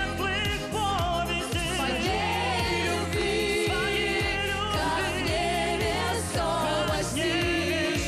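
A man sings a pop song live over band backing, his voice wavering with vibrato above a steady beat and a bass line.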